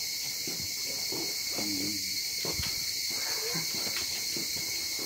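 Steady chorus of insects, a dense high-pitched buzz that holds unbroken throughout.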